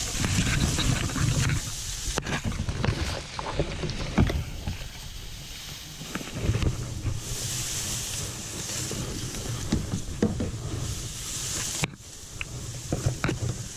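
Kayak being paddled through fast flood water: splashing and rushing water around the hull, with scattered knocks and splashes of paddle strokes and a low rumble throughout.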